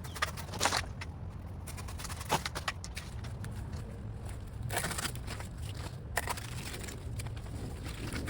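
Bird of paradise fronds and stems rustling and crackling as they are trimmed, with irregular sharp snaps and a longer rustle about five seconds in.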